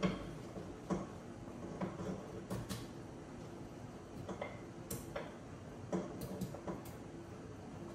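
A utensil stirring in a steel stockpot, clinking against the metal in light, irregular taps, about one or two a second.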